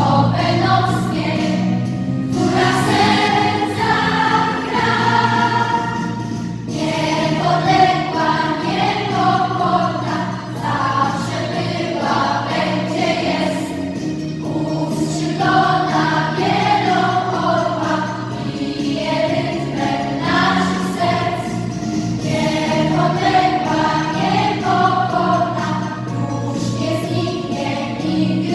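Children's choir singing together, phrase after phrase, under a conductor.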